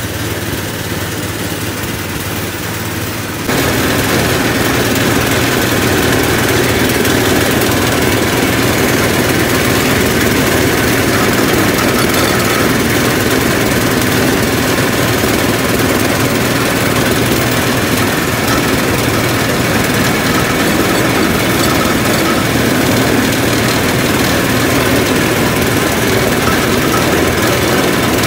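Motorized sugarcane juice press running steadily with a constant mechanical drone while cane stalks are fed through its rollers. It gets noticeably louder about three and a half seconds in.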